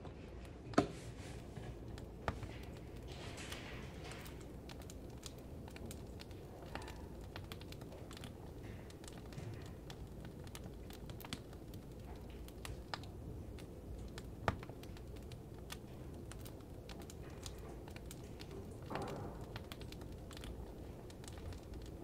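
Wood fire crackling: irregular small crackles and a few sharper pops over a steady low hiss.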